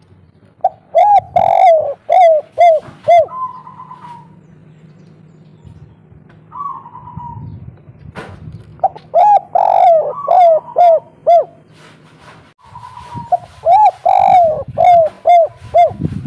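Spotted dove (tekukur, derkuku) cooing its 'kuk 3' song: three phrases, each a quick run of short cooing notes ending in a brief higher held note, a few seconds apart.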